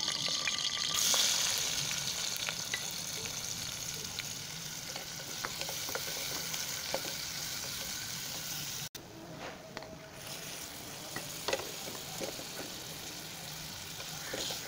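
Hot oil sizzling in a pressure cooker pot as sliced onions fry in it, with a spatula scraping and tapping against the pot as they are stirred.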